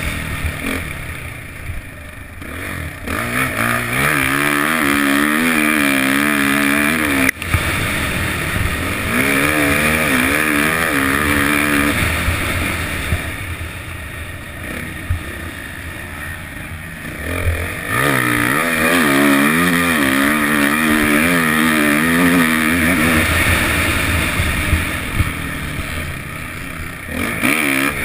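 Suzuki 450 motocross bike's four-stroke single-cylinder engine revving up and down as it is ridden hard on a dirt track. The throttle is shut off for short spells about a second in, again around the middle, and near the end. There is a single sharp knock about seven seconds in.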